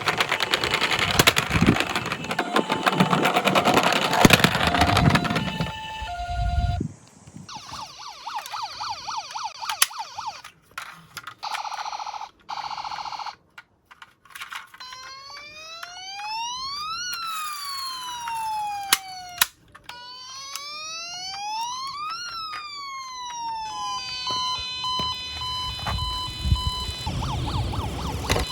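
A toy emergency vehicle's electronic siren wailing in two slow rise-and-fall cycles, after several seconds of loud plastic clattering and rattling and some scattered clicks. Near the end come steady electronic beeping tones.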